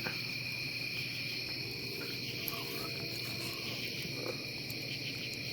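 Crickets and other night insects chirping steadily, with a fast, even pulsing trill high in pitch over constant buzzing tones.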